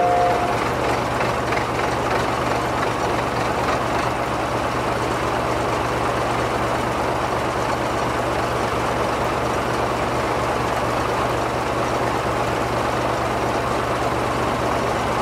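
JCB Loadall telescopic handler's diesel engine running steadily with an even rumble.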